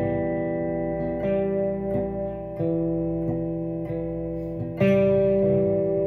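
Electric guitar played as a slow sequence of ringing chords, a new chord struck about every second, the strongest attack about five seconds in.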